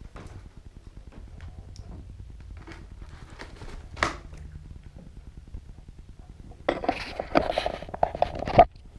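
Cardboard packaging being handled: faint rustles and clicks, a sharp knock about four seconds in, then about two seconds of loud scraping and rubbing near the end.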